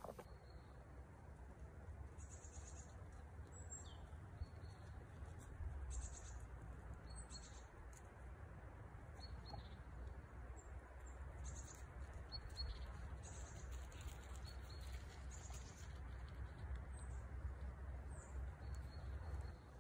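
Small birds giving faint, short high chirps, about one a second, over a low steady rumble.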